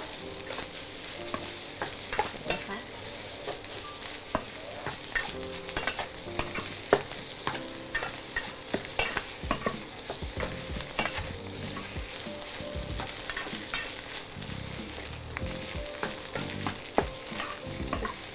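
Rice being stir-fried hard in a wok: a spatula scraping and knocking against the pan in quick, irregular strokes over a steady sizzle.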